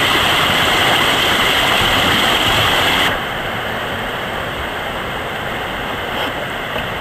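Steady rush of whitewater in a river rapid. It drops suddenly to a softer, even rush of water about three seconds in.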